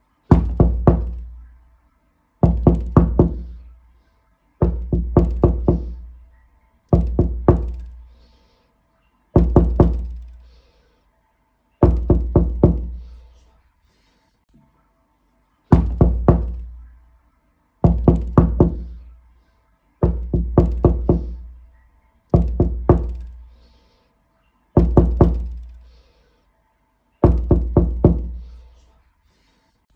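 Knocking on a door in repeated sets of three or four quick raps, about a dozen sets roughly two seconds apart. Each set has a low, resonant ring that dies away before the next.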